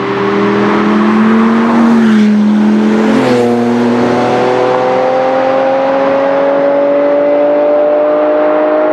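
Two sports cars passing close at speed, a Lamborghini Gallardo's V10 and then a Ferrari Testarossa's flat-12. Each engine note drops in pitch as it goes past, about two and three seconds in, then the cars accelerate away with a steady, slowly rising note.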